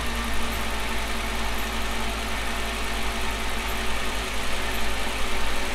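Volkswagen Jetta's 2.5-litre inline five-cylinder engine idling steadily, running on freshly installed spark plugs and coil packs.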